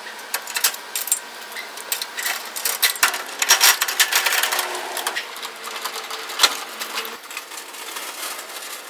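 Metal clinking and rattling of a small utility trailer's hitch hardware: coupler latch, safety chains and tongue jack handled during unhitching, then the trailer rolled by hand on its jack wheel over concrete. Many quick clicks and clanks, busiest a few seconds in.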